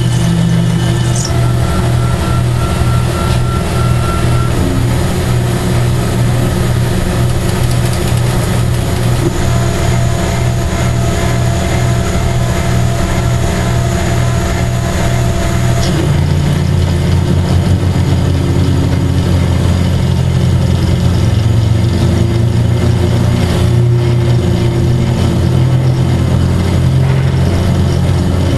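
Benchtop mill-drill converted to CNC running, its end mill cutting a slot into a cast-iron brake rotor: a loud, steady motor hum with a regular pulsing. About halfway through, the hum becomes louder and steadier.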